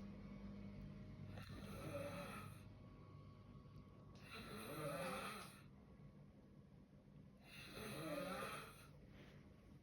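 A man snoring in his sleep: three snores about three seconds apart.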